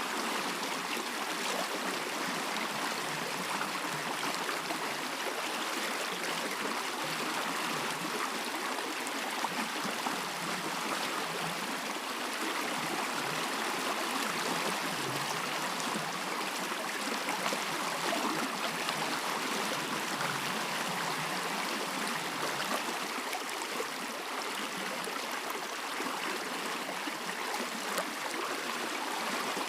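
A stream of running water, steady and unbroken.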